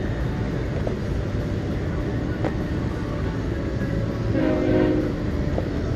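Steady low rumble of wind and open water. About four and a half seconds in, a horn-like chord of several tones is held for about a second.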